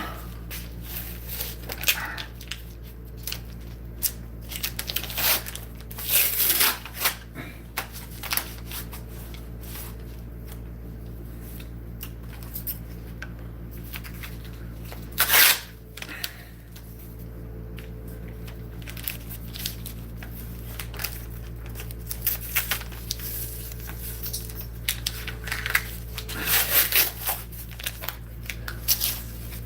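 Irregular rustling and scraping noises, as of something being handled close to the microphone, over a steady low electrical hum, with one brief louder burst about halfway through.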